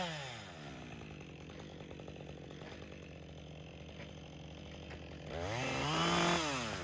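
Chainsaw engine dropping from full throttle to idle, idling steadily for several seconds, then revved up briefly about five seconds in and let back down to idle near the end.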